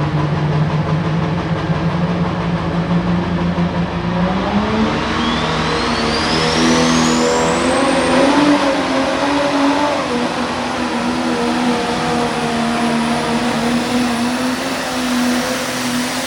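Pro stock pulling tractor's turbocharged diesel engine running hard under load during a pull. Its pitch steps up about four seconds in, and a high whine climbs over the next few seconds.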